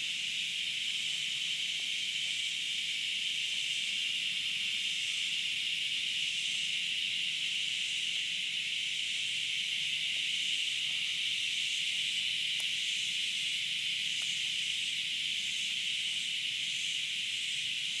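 Cicadas calling in chorus: a steady, high-pitched buzz, with a fainter higher layer pulsing about once or twice a second.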